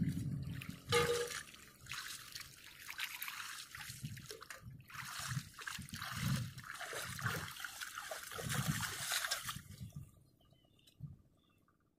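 Water sloshing, splashing and trickling as hands work in shallow muddy water, with a knock at the start and another about a second in; the water sounds stop near the end.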